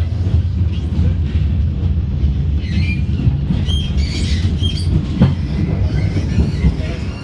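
Tram running on its rails: a steady low rumble with faint high wheel squeals and a sharp knock about five seconds in.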